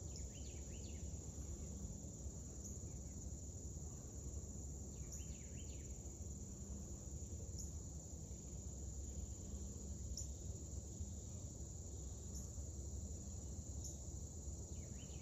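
Steady high insect drone with a low rumble underneath, and short chirps recurring about every two and a half seconds.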